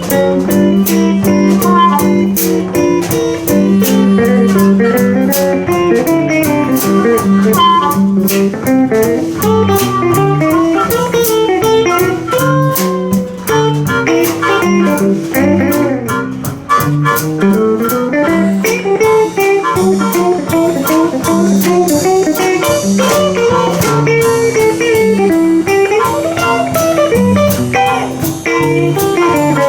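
Live blues band playing an instrumental break: a lead guitar bending notes over a second guitar and a drum kit keeping a steady beat.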